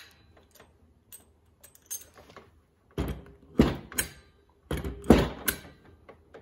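CoFast CN70 pneumatic coil nailer dry-firing with its contact arm pressed on a wood block and no nails loaded: sharp clacks of the driver with blasts of exhaust air, in two groups about three and five seconds in, after a few light clicks.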